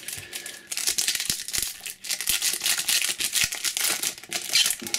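Foil trading-card pack wrapper being torn open and crinkled by hand: a dense, crisp crackling that dips briefly about two seconds in.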